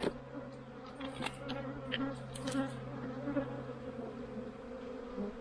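Honeybees buzzing in a steady mass hum around a hive entrance during a robbing frenzy, with a few short scrapes and clicks of a metal hive tool against the wooden bottom board.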